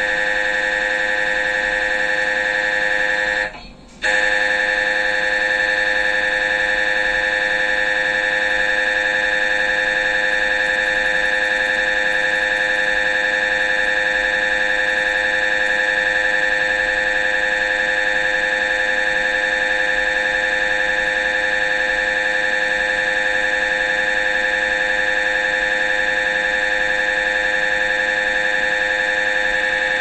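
MRI scanner's gradient coils buzzing steadily at a high pitch while running a coronal diffusion-weighted brain scan. The buzz breaks off briefly about three and a half seconds in, then carries on unchanged.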